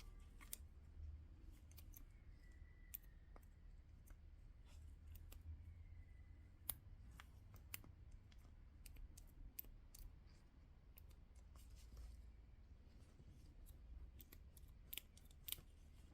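Faint, irregular clicks and light taps of small parts being handled while a vacuum wiper motor is cleaned and taken apart, over a low steady hum.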